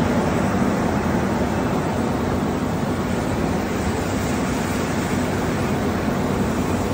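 Steady machinery drone of an electroplating line: a constant even noise with a low hum under it, unchanging throughout.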